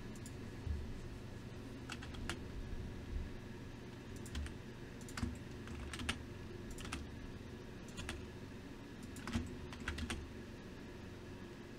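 Computer keyboard and mouse in use: irregular single clicks, roughly one every second, sometimes two in quick succession, over a low steady hum.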